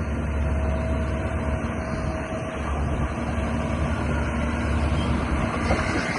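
Hydraulic excavator's diesel engine running steadily, a constant low rumble with a faint steady whine above it.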